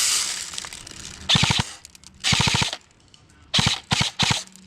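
Airsoft guns firing full-auto bursts of rapid shots: a burst about a second and a half in, another about a second later, then three quick short bursts near the end.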